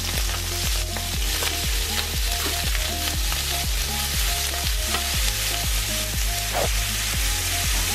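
Raw shrimp sizzling in hot oil in a frying pan and being stirred with a wooden spoon: a steady, dense sizzle. A music track with a regular beat plays underneath.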